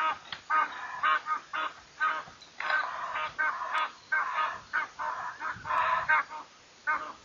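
Egyptian geese calling: a rapid run of harsh, repeated honks, several a second, building to a dense burst in the middle and thinning out near the end.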